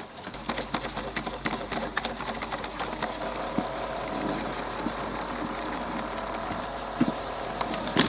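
Ecovacs DEEBOT N8+ robot vacuum's motors whirring as it drives and turns onto its auto-empty station to dock, its spinning side brush brushing against the base. Many quick clicks and knocks come in the first few seconds, then a steadier whir with a knock about seven seconds in.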